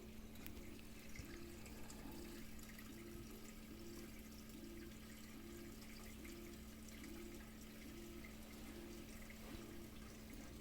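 Faint trickling and dripping of water circulating through a reef aquarium's overflow and sump, over a steady low pump hum. A soft tone pulses a little under twice a second throughout.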